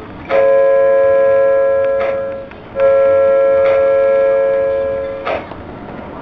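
O scale model train's electronic horn sounding two long blasts, each about two seconds, each a steady multi-note chord. A short click comes about every second and a half.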